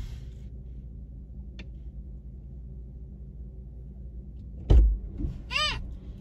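Low steady rumble in a parked car's cabin, with a faint click early on. About three-quarters of the way through a car door shuts with a heavy thud, and shortly afterwards a young child in the back seat gives a short high call.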